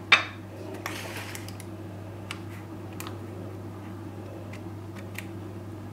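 Kitchenware being handled on a counter: a sharp clatter at the start, a short scrape about a second in, then a few light clicks, over a steady low hum.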